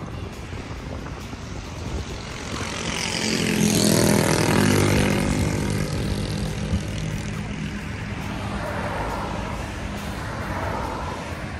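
A motor vehicle passing close by on the road, its engine and tyre noise swelling to a peak about four seconds in and then fading, over steady traffic noise.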